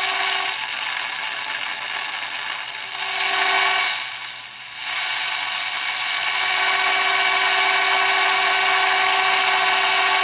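Roberts Rambler transistor radio's speaker hissing on medium wave, with the signal generator's steady low test tone coming through. The tone drops out near the start, comes back briefly about three seconds in, then returns and holds from about six seconds in as the set is tuned for maximum output during RF alignment.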